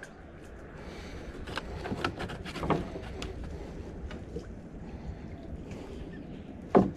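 Mangrove branches rustling and cracking as someone reaches into them from a small boat, with scattered clicks and knocks and one sharp knock near the end, the loudest sound. A low rumble of wind on the microphone sits underneath.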